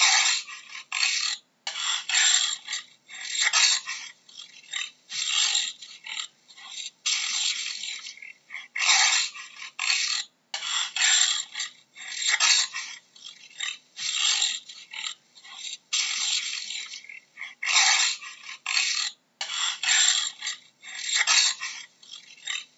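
Jaguar giving its sawing call: a long run of rasping strokes without a clear pitch, about one a second, with short gaps between them.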